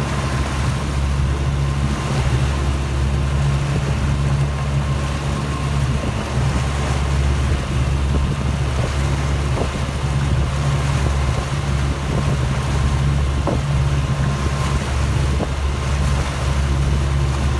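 Motor boat's engine running at a steady speed, a constant low drone under a hiss of water and wind.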